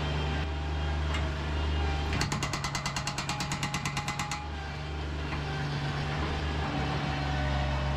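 A machine engine running steadily, with a rapid mechanical hammering rattle of about nine strikes a second that lasts about two seconds near the middle.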